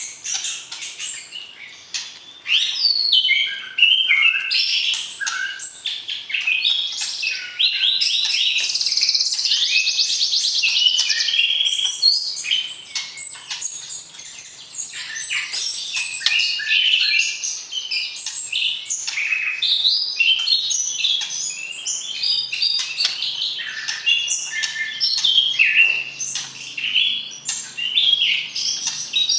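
White-rumped shama (murai batu) singing a long, varied run of whistles, trills and chirps, with a fast buzzy trill about a third of the way in.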